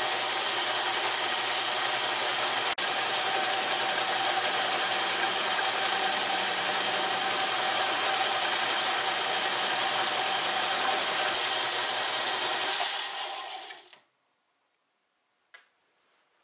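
Metal lathe running with its gear-driven headstock spinning while the cutting tool takes a light cut on a metal slug, a steady mechanical whine with one sharp click about three seconds in. The lathe winds down and stops about thirteen seconds in, followed by a faint tick.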